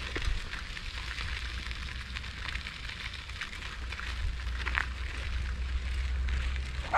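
Tyres crunching and crackling over a gravel dirt road while riding along, over a steady low rumble.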